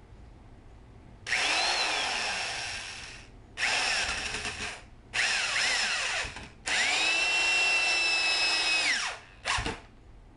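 Corded electric drill driving wood screws through a PVC-pipe roller into the landscape timber inside it: four runs of one to two and a half seconds, then a short blip near the end. The motor's pitch climbs as the trigger is squeezed and sags as it loads up under the screw.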